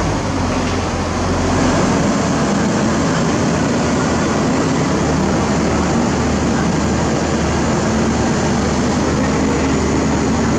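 Heavy diesel engine of construction machinery running steadily under load, its low note changing at the start.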